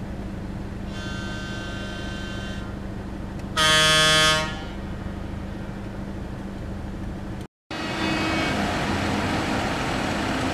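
Vehicle horns honking over a steady low engine hum: a fainter long honk, then a louder honk of about a second. The sound cuts out for an instant, then comes back as louder rumbling traffic noise.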